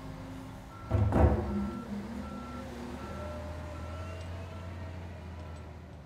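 A loud heavy bang about a second in, followed by a wheel loader's reversing alarm beeping steadily, about once every three-quarters of a second, over the low running of its engine.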